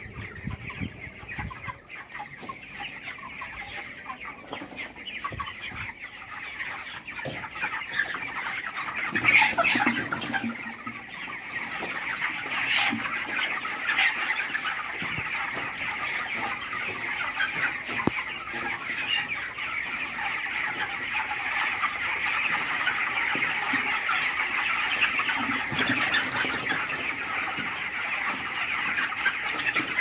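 A large flock of 25-day-old broiler chickens in a shed, many birds clucking and cheeping at once in a steady, dense chatter that grows louder over time, with a few sharper, louder calls about a third of the way in.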